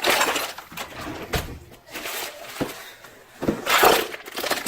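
Tools being rummaged through in a drawer or box: irregular clattering with a few sharp knocks as metal pieces are moved about.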